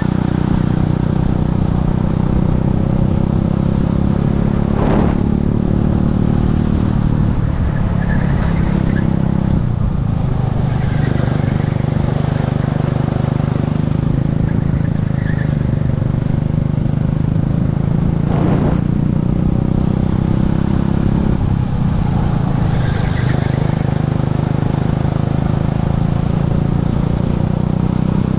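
Techspeed P1000 kart engine running hard at racing speed, heard from the driver's helmet. Its note drops a few times as the kart slows for corners and climbs again out of them.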